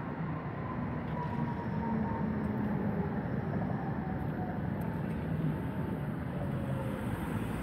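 Steady rumble of passing traffic, with a faint motor whine that slowly falls in pitch through the middle.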